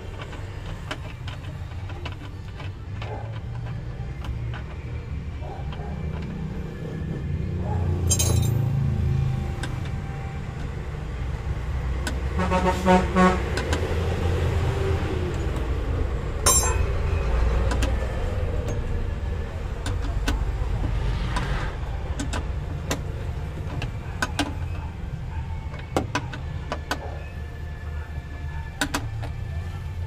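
Scattered metallic clicks and clinks of a seatbelt's floor anchor bolt, buckle hardware and hand tools being handled while the belt is fitted to a minivan's rear floor, over a steady low rumble. A brief pitched tone sounds about halfway through.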